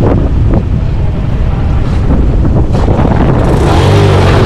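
150cc Suzuki motorcycle engine running under load as the bike is pushed through landslide rubble and mud, heavy rumble and buffeting on the bike-mounted microphone; the engine note comes up more steadily near the end.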